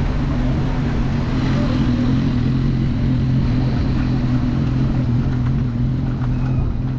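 City street traffic noise: a steady low hum under an even rushing haze.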